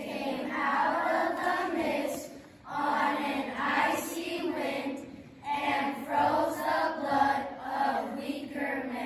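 A class of children's voices in unison, chanting together in three long phrases with short breaks between them.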